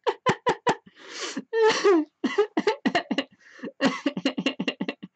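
A woman laughing in a run of short, quick bursts, with a breathy sound about a second in.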